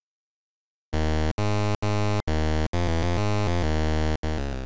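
Short chiptune-style synthesizer jingle: after a second of silence, a quick run of buzzy electronic notes stepping through a little melody, the last note fading out.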